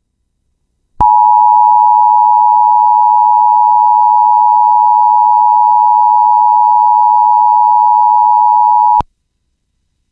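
Emergency Alert System attention signal: the steady two-tone alarm (853 and 960 Hz together) held for about eight seconds, starting abruptly about a second in and cutting off sharply. It announces the spoken alert that follows, here a child abduction emergency (AMBER Alert).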